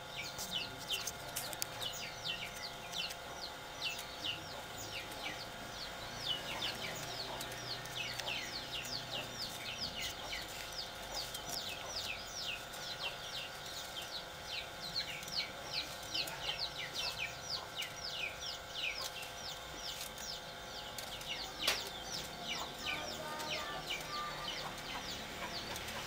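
Caged green songbird chirping in a fast run of short, high, down-slurred notes, about two or three a second, with brief pauses between runs.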